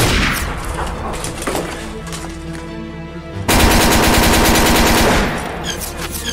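Gunfire in a staged shootout: one loud shot at the start that rings away, then, about three and a half seconds in, a rapid burst of automatic fire lasting under two seconds, over background music.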